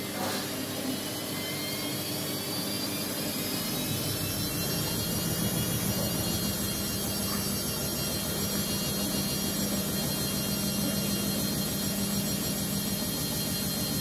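Amica WA 14680 W front-loading washing machine spinning up: the drum motor's whine rises in pitch over the first few seconds, then settles into a steady high-speed spin with a low rumble.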